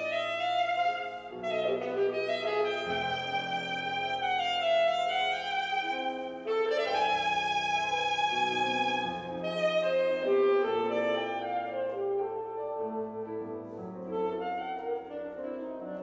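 Alto saxophone playing a legato melody of held and gliding notes over grand piano accompaniment, classical concerto music.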